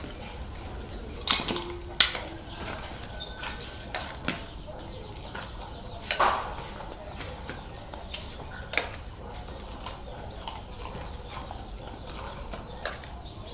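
Metal dog bowls and a serving spoon clinking against a metal pot and on a tiled floor as dog food is dished out: a handful of sharp clinks spread over several seconds.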